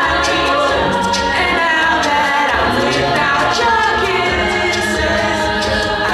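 Mixed a cappella choir singing in harmony, with voices on microphones over a deep vocal bass and a steady beat of mouth-made percussion clicks.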